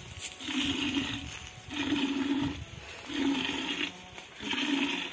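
Water buffalo being hand-milked: milk squirting into a bamboo milk vessel (dhungro) in four even pulls, about one every second and a half.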